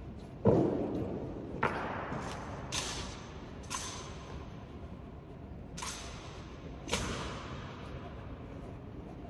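Honor guard drill in a large stone hall: a heavy thud about half a second in, then five sharp cracks at uneven intervals, each echoing through the hall, some with a short metallic ring. These are rifle strikes and boot stomps on the floor.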